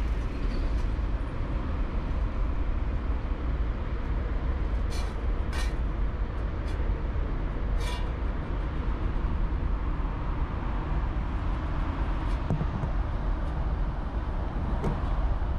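Steady low rumble of urban traffic, with a few brief, sharp high-pitched sounds about five, five and a half and eight seconds in.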